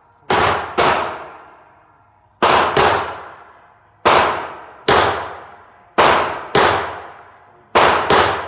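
Revolver shots from a .45 Colt single-action revolver being test-fired: ten sharp reports, mostly in pairs about half a second apart, each dying away in a long echoing tail.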